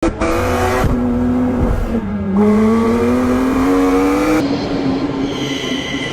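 AI-generated car engine sound effect: a running engine whose pitch drops about two seconds in and then climbs steadily as it revs up, changing abruptly a few times as if cut between takes.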